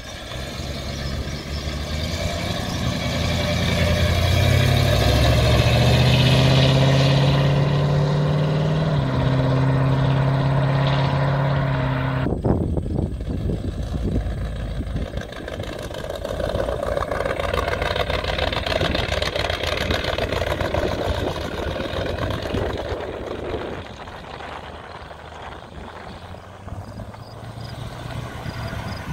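Hot rod engines accelerating past one after another. The first car's engine note climbs in steps as it pulls away through the gears. About twelve seconds in the sound changes suddenly to another car passing with a rougher, less tuneful exhaust, which grows quieter near the end.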